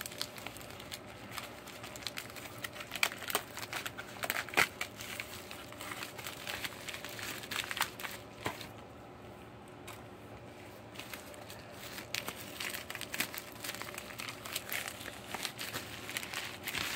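Padded plastic mailer being opened and handled, crinkling and crackling in irregular bursts that thin out for a few seconds midway.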